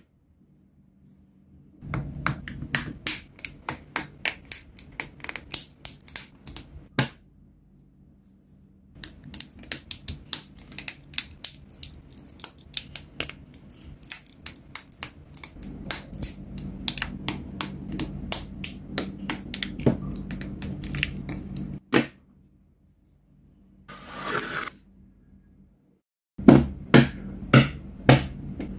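Rapid clicks and snaps of small plastic model-kit armour parts being handled and pressed together onto their joints, in runs broken by short silences, with a brief rustle about three-quarters of the way through.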